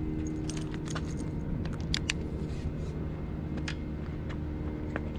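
Light metallic jingling with a few sharp clicks scattered through, over a steady low hum.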